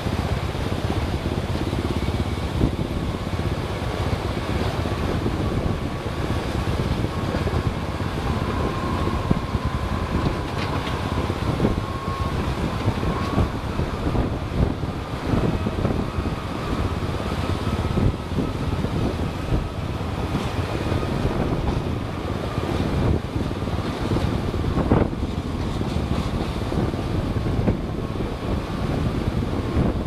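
A vehicle driving on a rough road, with heavy wind noise on the microphone and frequent small knocks and rattles.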